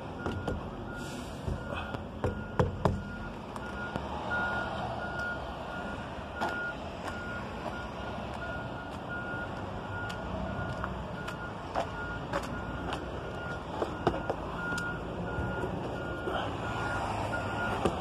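Vehicle backup alarm beeping steadily, a single high tone repeating at even intervals over a low vehicle rumble. A few sharp knocks and handling clicks are heard, the loudest about two and a half seconds in.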